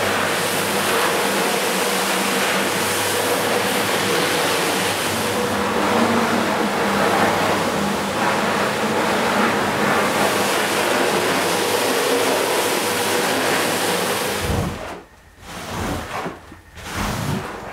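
Rotary floor scrubbing machine running steadily, its brush churning shampoo foam into a wet rug, with a steady motor hum under the noise. About fourteen and a half seconds in it stops, and uneven swishing strokes of a mop pushing soapy water across the rug follow.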